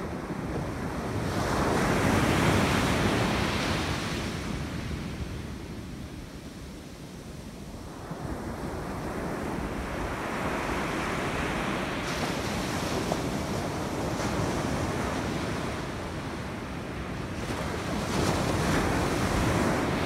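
Rough ocean surf: waves breaking and washing up the beach, the noise swelling and fading every several seconds, loudest about two seconds in. Wind buffets the microphone.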